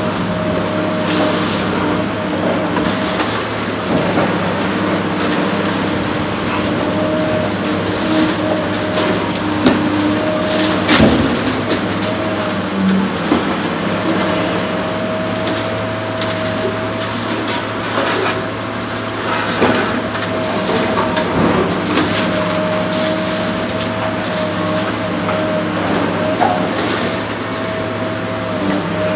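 Large hydraulic demolition excavator running steadily under load, with a held whine that wavers a little in pitch, and scattered cracks and knocks of material being broken, the loudest about eleven seconds in.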